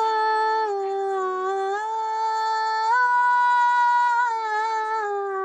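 A woman's unaccompanied voice singing a wordless, drawn-out 'aa' melisma of Bengali Islamic gazal. She holds long notes that step down, rise back up about three seconds in, and glide lower again near the end.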